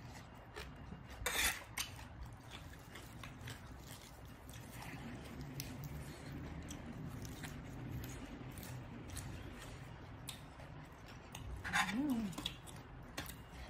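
Close-miked chewing and crunching of green papaya salad and fresh lettuce, with scattered crackles and a couple of louder crunches, about a second in and near the end.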